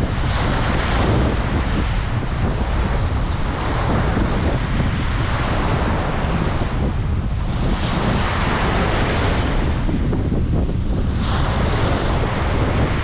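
Ocean waves washing onto a beach, swelling and easing several times, with wind buffeting the microphone as a constant low rumble.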